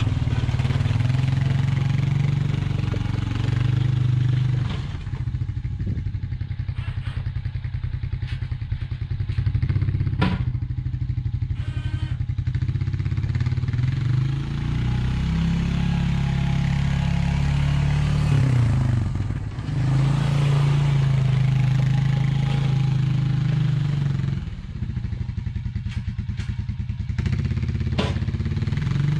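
Honda Rancher ATV's single-cylinder engine running as the quad drives back and forth pushing a front-mounted snow plow, its revs holding steady for stretches and rising and falling several times. There is a sharp knock about ten seconds in.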